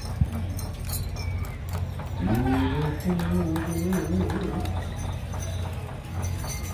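Dancers' leg bells jingling and clinking as the chicken dancers move about, over a steady low hum. A single voice calls out for about two seconds near the middle.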